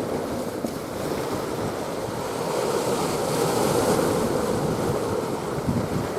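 Steady rush of sea water and wind, with wind buffeting the microphone; it swells slightly midway.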